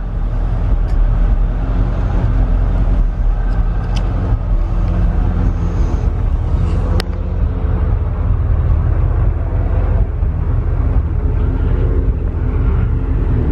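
1976 Chevy C50's 350 small-block V8 running steadily at a low idle with the PTO engaged, driving the hydraulic pump that works the rollback bed. A single sharp click about halfway through.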